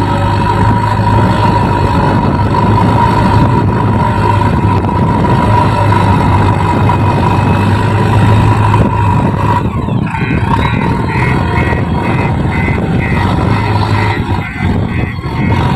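JCB backhoe loader's diesel engine running steadily with a loud hum while it works loading soil. About ten seconds in, a rapid, evenly repeating high-pitched pulsing joins it.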